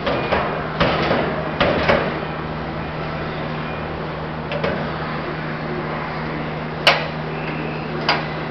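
Steel animal-proof litter receptacle's lid and tamper-proof latch being worked by hand. A cluster of metal clunks and rattles comes in the first two seconds and another clunk about halfway through. A sharp metal clack comes near seven seconds and a smaller one just after eight, as the latch releases and the heavy steel lid lifts.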